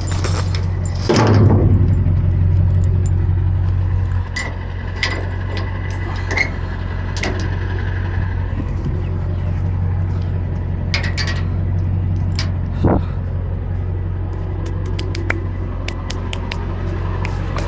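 Truck engine idling steadily, with scattered knocks and scrapes on top, including a louder knock about a second in and another near 13 seconds.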